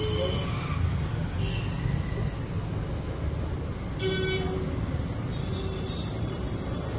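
Steady low background rumble with short electronic beeps from an ATM's keys being pressed, the clearest one about four seconds in.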